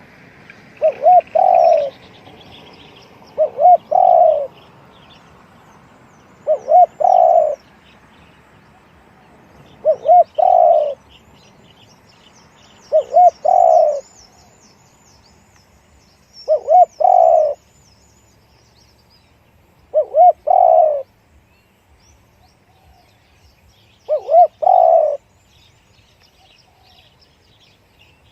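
Spotted dove cooing: a short, deep phrase of a quick lead note or two and a longer coo, repeated eight times about every three to four seconds. Small birds chirp faintly and high in the background.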